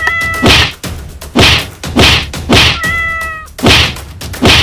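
A wooden stick whacking down repeatedly, about six blows, while a cat cries out twice, at the start and again about three seconds in.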